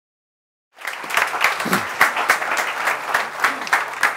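Audience applauding: many hands clapping, starting abruptly after silence under a second in.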